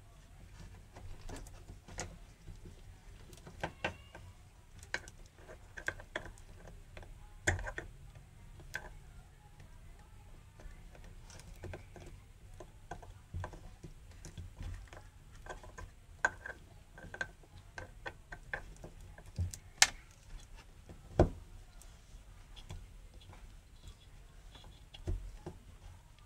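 Scattered light clicks, taps and rubbing from a plastic fuel level sender unit and its rubber hose being handled and worked into a car's fuel tank opening. A few sharper knocks stand out, one about seven seconds in and two more about twenty seconds in.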